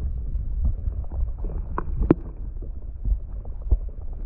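Muffled underwater sound through a GoPro's waterproof housing held under the water in a plastic tub: a low steady rumble of water and handling noise, with a few sharp knocks against the housing, the loudest about two seconds in.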